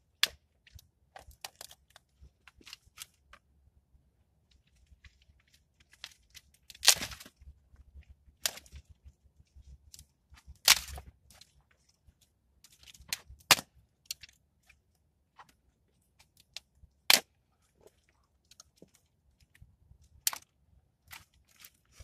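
Dry branches and twigs snapped by hand: an irregular string of sharp cracks, about five of them much louder and a few seconds apart, with lighter crackling and rustling of twigs in between.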